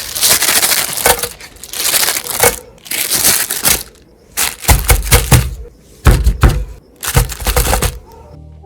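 Meat grinder crushing material in about six separate noisy bursts, some with a low rumble underneath. Music starts just before the end.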